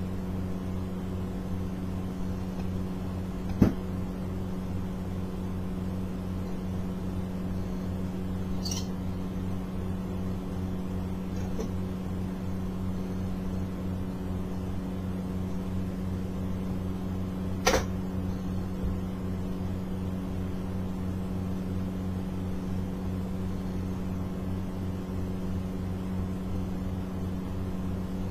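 A steady low hum runs throughout, with two sharp knocks, a few seconds in and again about two-thirds of the way through.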